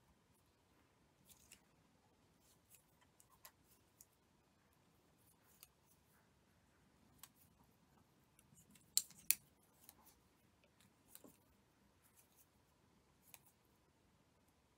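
Faint handling sounds of tatting: plastic tatting shuttles handled and thread drawn tight, giving scattered light clicks, with two sharper clicks close together about nine seconds in.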